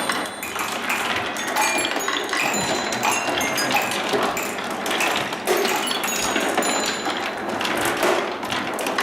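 Many marbles rolling and clattering through a wooden marble run: a dense, steady stream of clicks and knocks with short ringing pings as they strike the wooden track and each other.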